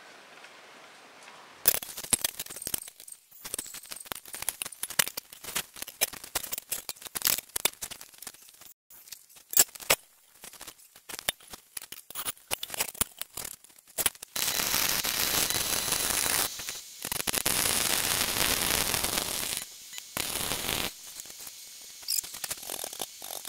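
Electric arc welder crackling and hissing on steel: short irregular spurts at first, as when tacking, then two longer steady runs a few seconds long about two-thirds of the way in.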